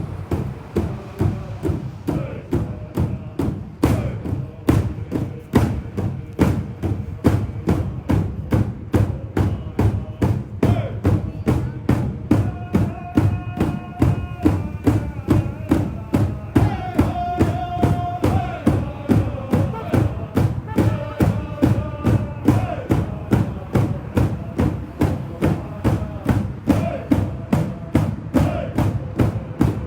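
Native American honoring song: a drum beaten steadily at about two strokes a second, with high sung vocals joining over the beat about ten seconds in and falling away after about twenty-three seconds.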